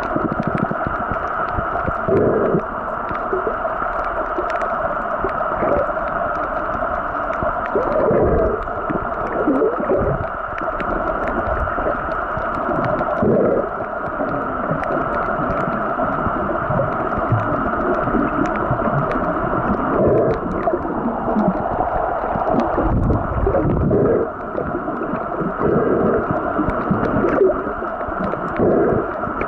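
Muffled underwater noise picked up by a waterproof compact camera's built-in microphone while moving over a shallow reef: a steady dull hiss of water, with repeated low whooshes of water movement every few seconds and faint crackling.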